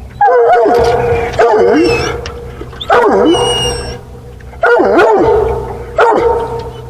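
Coonhound baying: five long, loud drawn-out calls with wavering, falling pitch, about a second apart, over a steady low hum.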